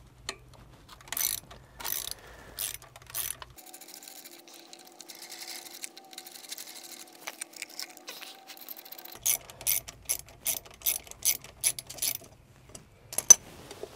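Ratchet wrench with a 1/4-inch socket clicking as the screws of a pump motor's wiring-panel cover are backed out: a few clicks, then a quieter pause, then a run of even clicks about three a second, and one sharper click near the end.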